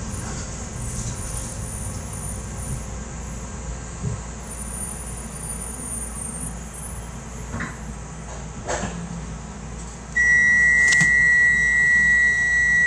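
Docklands Light Railway train standing at a platform with a low steady hum. About ten seconds in, a loud, steady, high-pitched electronic tone starts suddenly and holds for about three seconds, with a click partway through: the train's door warning tone as the doors are released.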